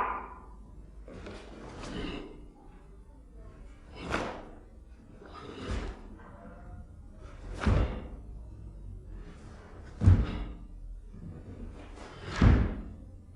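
A series of about six separate thuds, one every one and a half to two and a half seconds, from a karateka's feet landing and stamping on the floor while moving through the kata Jion.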